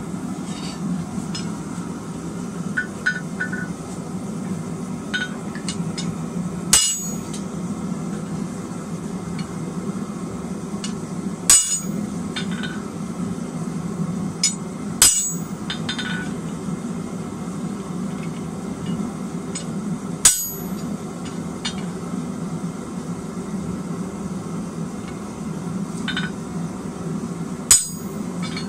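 Steady low hum of a running forge, with a sharp metallic clank every few seconds, about five loud ones and a few lighter clinks, as steel is handled at the anvil in a spring fuller.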